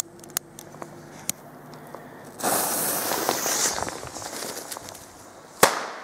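Weco Pyro Cracker firecracker: a few small clicks of a lighter, a stretch of hissing about two and a half seconds in, then one sharp bang about five and a half seconds in.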